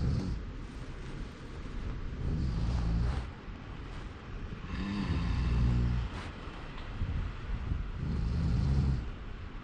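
Someone snoring heavily: four rattling snores about every two and a half to three seconds, the third with a high whistling tone over it.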